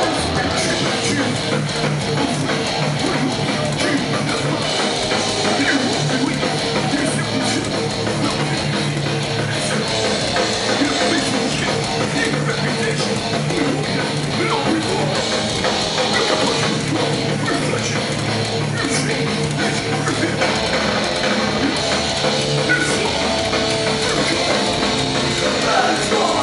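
Live hardcore punk band playing loud and fast: distorted electric guitars, bass and pounding drum kit, with shouted vocals.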